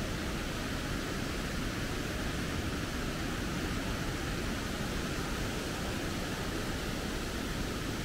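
White-water river rapids rushing, a steady even hiss of water that holds without change.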